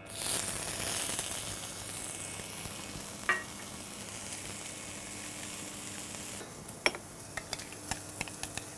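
Blanched lettuce sizzling in hot oil in a frying pan: the hiss starts suddenly and loud, then slowly eases. It cuts off about two-thirds of the way through, and light clinks and taps of kitchenware follow.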